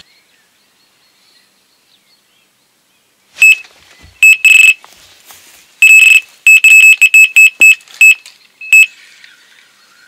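Electronic carp bite alarm beeping loudly and irregularly as line is pulled off the rod: single beeps and longer tones starting about three seconds in, then a quick run of beeps, stopping shortly before the end. The angler takes it for a fish knocking into the braided line rather than a true take.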